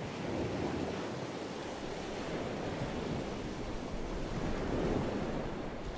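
Wind on the microphone: a steady rushing noise with slight swells.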